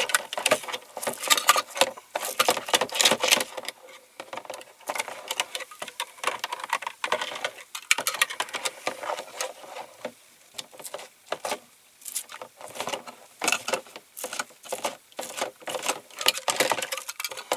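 Hand wire brush scrubbing caustic-soda-softened paint off a diecast metal body, in quick irregular scratchy strokes with a couple of short pauses.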